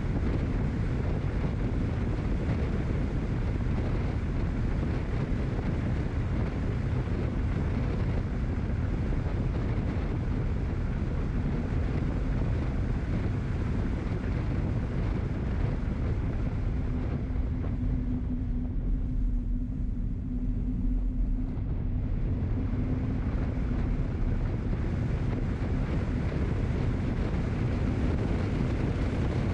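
Steady low rumble of wind on the microphone and road noise from travelling along a wet road. About two-thirds of the way through, the hiss thins out for a few seconds and a low steady hum comes through.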